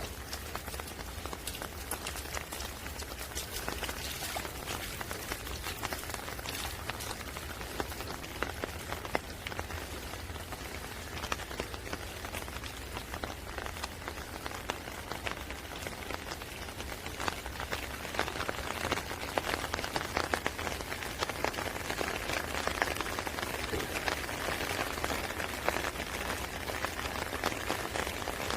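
Steady rain falling, many separate drops striking close by. It grows a little louder about two-thirds of the way through.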